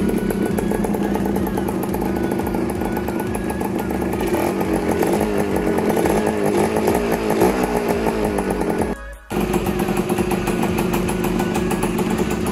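Yamaha RS 100's two-stroke single-cylinder engine running, its revs rising and falling through the middle. The sound drops out for a moment about nine seconds in.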